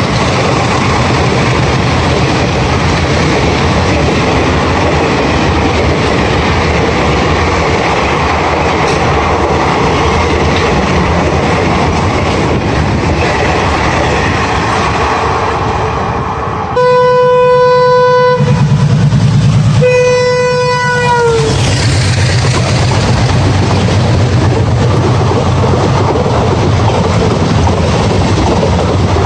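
Passenger train coaches rushing past at speed, the wheels clattering steadily over the rail joints. About halfway there are two loud blasts of a locomotive horn, the second dropping in pitch as it ends.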